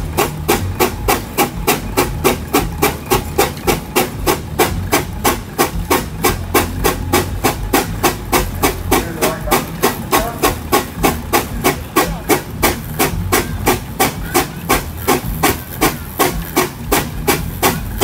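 Fowler steam ploughing engine working under load as it winches in its cable, its exhaust beating steadily about three times a second over a low mechanical rumble.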